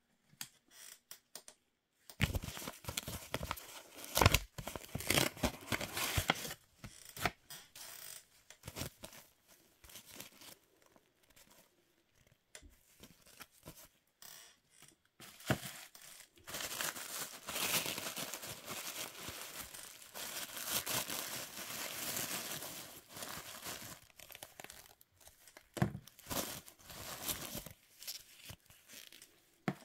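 White tissue-paper wrapping and clear plastic packaging being torn and crinkled by hand, in irregular bursts with sharp crackles. Near the middle this becomes a longer stretch of steady crinkling.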